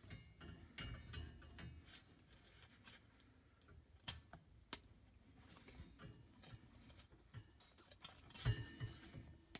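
Faint clicks and light rattling of a defrost heater and its wire leads being handled and turned to the right orientation, with two sharper clicks around the middle.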